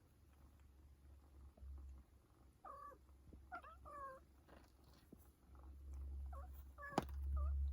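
Domestic cat giving about six short pitched calls, in quick pairs, starting a few seconds in. A sharp click near the end is the loudest sound, over a low rumble that grows louder in the second half.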